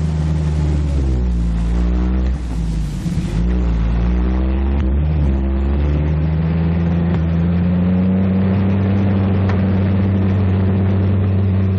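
M4 Sherman tank dozer's engine running hard. Its pitch drags down twice under load, about a second in and again about five seconds in, then picks back up as the blade pushes.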